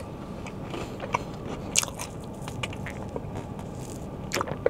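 Close-up chewing with small crunches and wet mouth clicks as a person eats.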